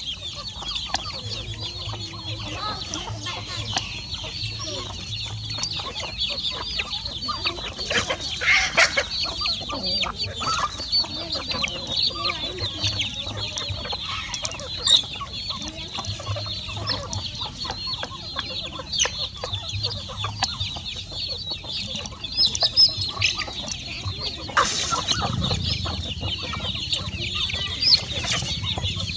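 A flock of young chickens cheeping and clucking without a break as they feed, with a few sharper knocks here and there.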